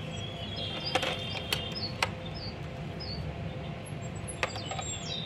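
A few sharp plastic clicks and taps as batteries are handled and pushed into a toy train's battery compartment, with short bird chirps in the background.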